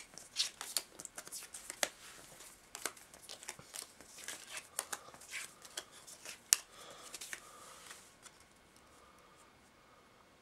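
Cardfight!! Vanguard trading cards being swept together and gathered into a stack on a playmat: rustling slides and sharp little clacks as the cards knock against one another. The clacks die away about two seconds before the end.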